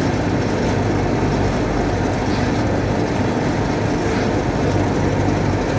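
Steady drone of garment-factory machinery: a constant low hum with dense rumble beneath, unchanging throughout.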